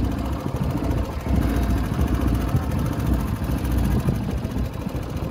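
A small fishing boat's engine idling steadily, a low continuous hum.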